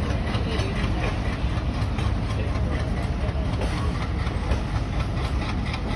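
WDM3D diesel-electric locomotive's engine running under throttle with a steady low rumble and a noisy exhaust wash above it.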